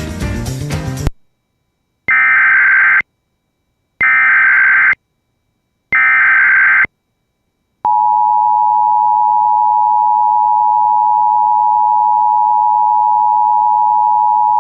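Emergency Alert System tones. After a second of music, three one-second bursts of SAME digital header data sound, each a second apart. About eight seconds in, the steady two-tone EAS attention signal begins and holds.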